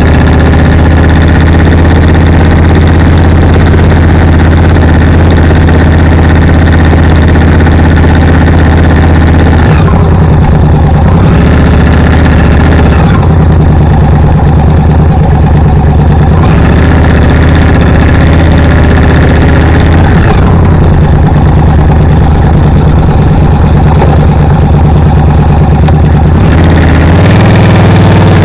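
Vehicle engine running steadily on the road, loud on the recording. Its note shifts a few times and rises near the end as it speeds up.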